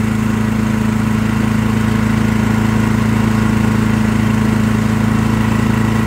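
Firman WH03242 dual-fuel inverter generator running at a steady speed, with an even, unchanging engine note.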